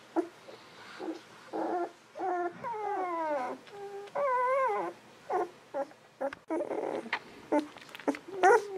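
Golden retriever puppies not yet two weeks old whimpering and squeaking: a run of short high squeaks and several longer wavering cries, the longest about four seconds in.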